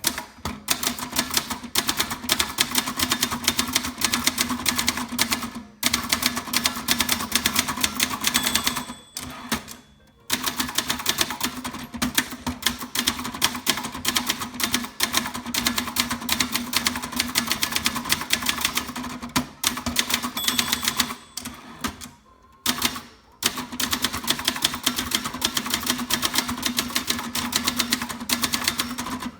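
Brother Charger 11 manual portable typewriter being typed on at a steady, fast pace: a dense run of snappy key strikes against the soft platen, broken by a few brief pauses.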